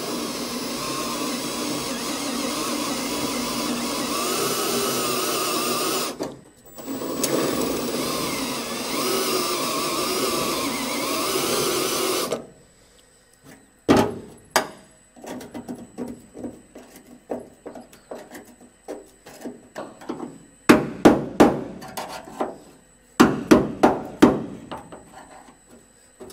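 Cordless drill cutting through a spot weld in the rusted steel floor pan, in two steady runs of about six seconds each with a short pause between. After a quiet gap come sharp metal-on-metal strikes and scrapes as a screwdriver is hammered in to pry the pan seam apart, falling into quick bursts of blows near the end.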